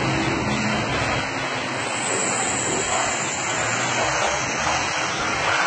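Steady rushing hiss of water spraying in a car-wash bay.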